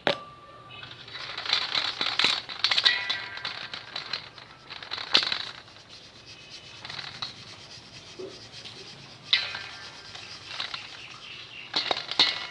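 Ground salt being sifted through a sieve into a pot: the grains rattle and patter in several bursts of shaking, with a light ringing from the sieve.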